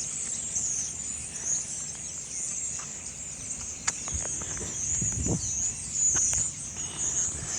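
A loud, dense chorus of high-pitched chirping from a great many calling animals, going on without a break, with a few faint clicks and low rumbles of handling noise.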